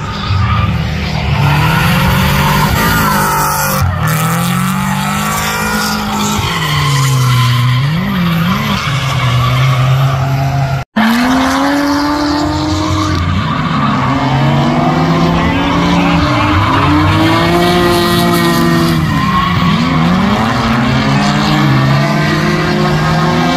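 Two drift cars running in tandem, their engines revving up and down over and over, with tires skidding and squealing. The sound drops out for an instant about eleven seconds in.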